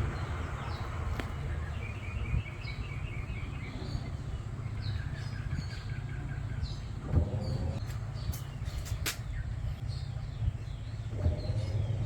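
Birds chirping and trilling in short repeated calls over a steady low hum, with a few sharp clicks.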